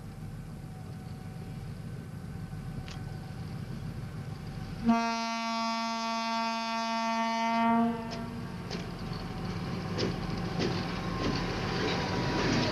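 ST44 (M62) diesel locomotive with its 14D40 two-stroke V12 engine rumbling as it approaches. About five seconds in, its horn sounds one steady blast of about three seconds. It then passes close by, the engine running and the wheels clicking over rail joints.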